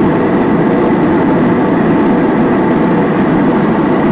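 Steady cabin noise of an Airbus A320-family jet airliner in flight: an even rumble and rush of the engines and the airflow over the fuselage, heard from inside the cabin at a window seat.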